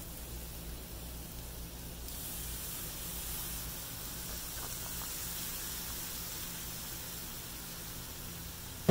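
Soy sauce and rice sizzling on a hot Blackstone flat-top griddle: a steady hiss that grows louder about two seconds in.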